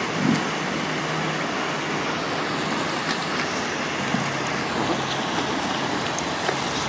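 Steady rushing background noise with a faint low hum, and a few small splashes and knocks as a large redtail catfish is handled in a landing net at the water's edge, with a knock just after the start.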